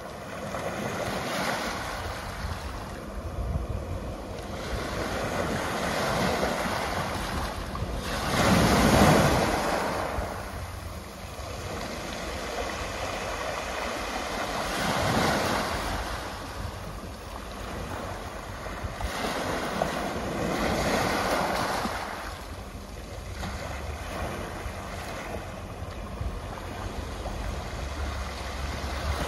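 Small waves breaking and washing up a pebble beach, swelling and falling back every few seconds; the biggest surge comes about nine seconds in.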